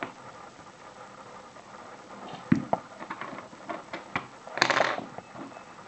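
Small clicks and handling noises from a euro cylinder lock and small hand tools being handled on a bench, with a sharp knock about two and a half seconds in and a short, louder scraping noise near the end.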